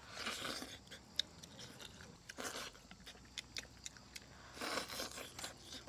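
People eating fish with chopsticks: faint chewing, with scattered small clicks and a few soft swells of breath or slurping.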